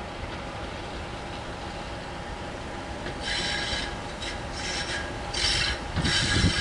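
Diesel locomotive approaching on a curve: a steady low engine rumble, then from about three seconds in, high scraping squeals that stop and start several times as the wheels grind against the curved rails. The engine grows louder near the end as it draws closer.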